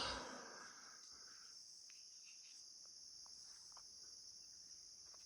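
Steady high-pitched chorus of insects such as crickets, with a single thump right at the start and a few faint ticks later.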